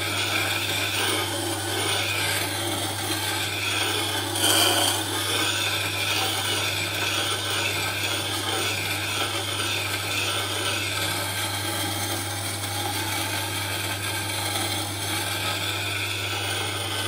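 Roughing gouge ground on a powered grinder, steel scraping against the abrasive as the tool is rolled around in a jig, over the steady hum of the motor. The grinding swells briefly about four and a half seconds in.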